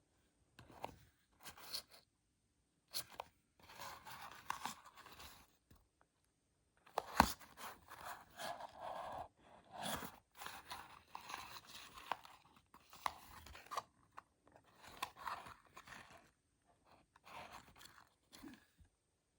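Hands handling and opening the small packaging of a Tomica die-cast toy car: on-and-off crinkling, scraping and tearing with sharp clicks, the loudest a sharp snap about seven seconds in.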